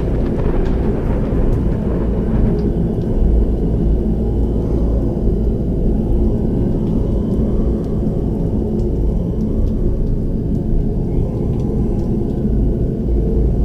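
Deep, steady low drone of Tibetan Bon ritual music, many low pitches sounding together, with a few faint high ticks.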